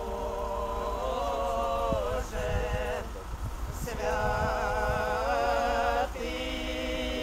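Voices singing a slow liturgical funeral chant in long held notes, stepping to a new pitch every second or two, with a steady low rumble beneath.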